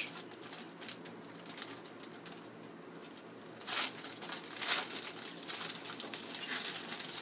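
Clear plastic packaging bag crinkling as a small network switch is handled inside it and worked out of it, with louder rustles about four and five seconds in.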